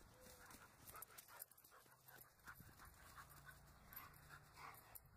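A dog panting faintly in quick, repeated breaths.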